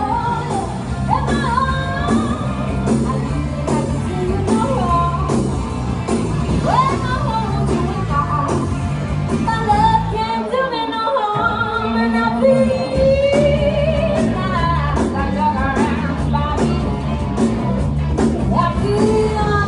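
Live band music with a singer, amplified through a PA in a large room: a steady rock-and-roll beat and bass under a wavering vocal line. The bass and drums drop out briefly about halfway through.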